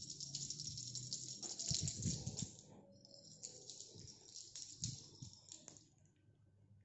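Small jingle bell on a feather wand cat toy jingling and rattling as the toy is whipped and batted about, with a few dull thumps. The jingling fades out about six seconds in.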